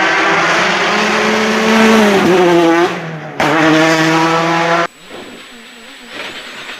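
Rally car engine running hard at high revs, with a brief dip about three seconds in, as at a gear change, before picking up again; the sound cuts off suddenly near five seconds.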